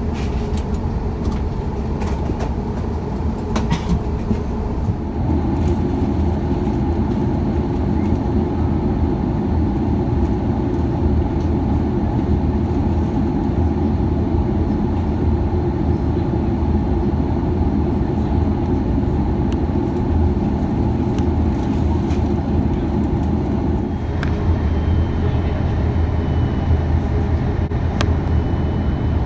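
Airbus A330 cabin noise in flight: a steady rumble of engines and airflow, which grows louder about five seconds in and eases a little near the end.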